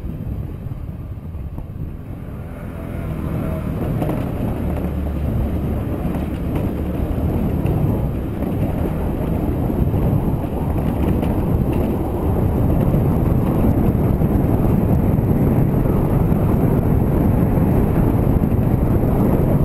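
Motorcycle riding with its engine running and wind buffeting the onboard microphone, a steady rumbling noise that grows louder from about two seconds in.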